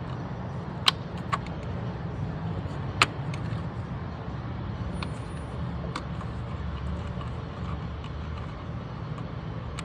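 A special tool working the transmission refill plug loose: a few sharp clicks and lighter ticks, the two loudest about one and three seconds in, over a steady low rumble.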